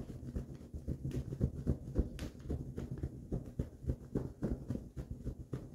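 Towel rubbed briskly over a face and head to dry it: a rapid, uneven run of soft, low rubbing thuds.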